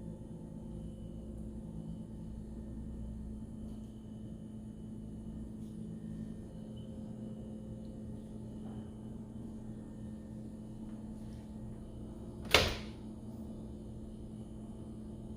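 A steady low hum with a single sharp knock near the end, like a door or cupboard shutting.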